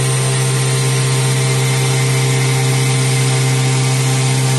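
CNC grinding spindle running steadily, its wheel grinding a white slab under sprays of coolant water: a strong low hum with a constant hiss over it.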